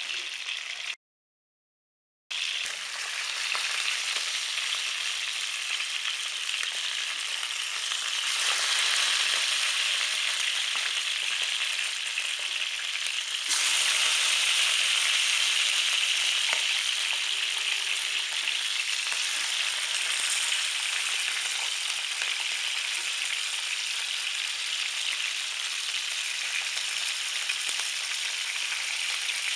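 Sausages sizzling in oil in a non-stick frying pan, a steady hiss. The sound cuts out completely for about a second near the start, then gets louder in two steps, about eight and thirteen seconds in.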